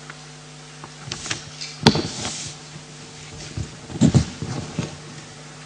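Microphone handling noise: a sharp knock about two seconds in, then a cluster of dull thumps and rubbing around four seconds in, over a steady low hum.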